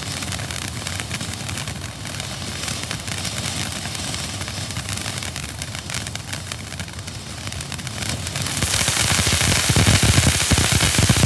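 Black Cat 3 Minute Fountain, a ground fountain firework, burning with a steady hiss. About eight and a half seconds in it grows louder and breaks into a dense, rapid crackling as the shower of sparks widens.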